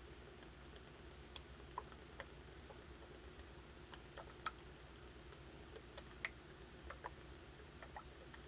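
Near silence: room tone with a dozen or more faint, irregular little clicks and ticks.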